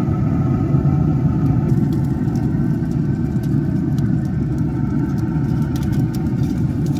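Steady low rumble and hum of a running Traeger pellet grill, its fan going, with light metallic clicks from about two seconds in as tongs touch the wire rack.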